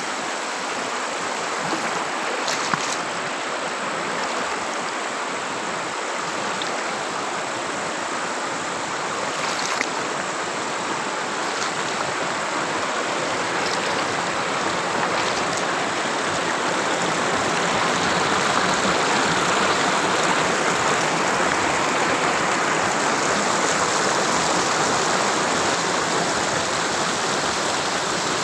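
Flowing water, a steady even rush that grows a little louder past the middle, with two faint clicks about three and ten seconds in.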